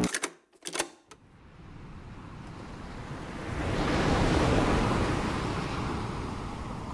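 A single wash of surf: a soft rush of noise that swells over about three seconds and then slowly ebbs away. Just before it, the music cuts off, leaving two brief fragments in the first second.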